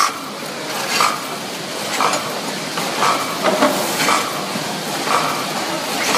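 A multihead weigher on a cookie packaging line is running, with a steady machine noise. About once a second there is a clatter as a weighed portion of about 18 g of cookies drops through the stainless discharge chute for bagging.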